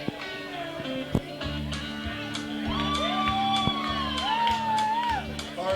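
Band music with a repeating bass line and drum hits, and a voice singing long sliding notes over it in the middle.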